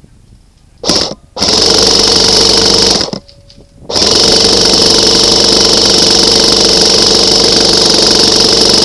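Airsoft rifle firing on full auto at close range, in three bursts: a short one about a second in, a longer one of about a second and a half, then a continuous burst of about six seconds from about four seconds in.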